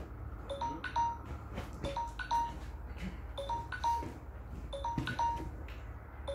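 Workout interval-timer alarm beeping: a short three-note electronic chime pattern repeated about every one and a half seconds, about five times, the signal to start the next set.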